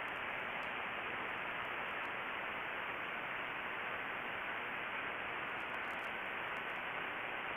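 Steady hiss of band noise from a SoftRock 80/40 software-defined radio receiver on 80-metre lower sideband, with no station on the frequency between transmissions. The static is cut off above about 3 kHz by the receive filter.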